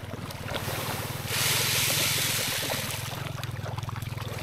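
Handful of pelleted fish feed flung over a pond, landing on the water in a hissing shower of about a second and a half, followed by scattered small splashes, over a steady low hum.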